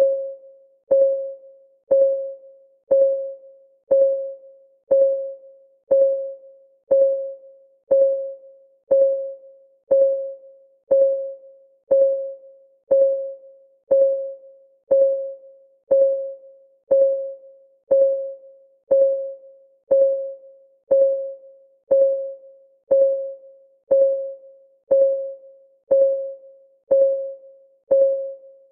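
A countdown timer's clock-ticking sound: a short pitched tick once a second, each one dying away quickly, at an even pace.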